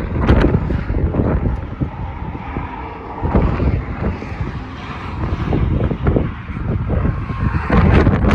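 Wind buffeting the microphone: a loud, uneven rumble that swells and fades in gusts, with occasional sharp pops.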